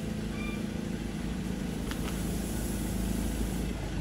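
Pickup truck engine running steadily at low revs, with a faint click about halfway through.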